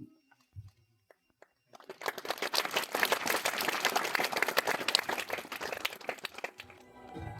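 Audience applauding: a crowd's clapping starts suddenly about two seconds in, holds steady and dies away near the end.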